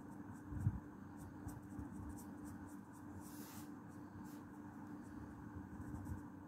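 A pink felt-tip marker rubbing on paper in short, repeated strokes as an area is coloured in, over a steady low hum. A low knock comes just under a second in.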